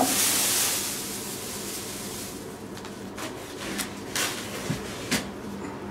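Handling noise: a rustling hiss over the first second, then a few light knocks and rubs spaced about half a second to a second apart.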